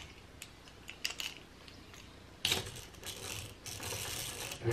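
Antique geared hand drill being cranked slowly, its gears clicking and rattling as a number 53 bit turns in a pin hole in a wooden gunstock. Very faint for the first couple of seconds, then a steadier run of clicking from about halfway.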